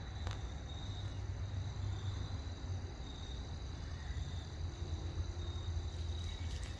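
Outdoor ambience: a steady low hum with a continuous high-pitched insect trill over it, and a few faint clicks.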